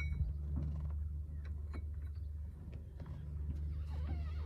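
A steady low hum with a few faint, light clicks from small parts being handled.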